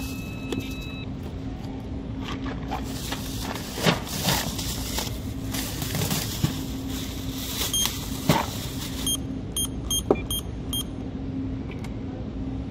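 Short electronic beeps from a checkout keypad, about six in quick succession around nine to eleven seconds in. Under them run a steady low hum and knocks and rustles of items being handled on the counter.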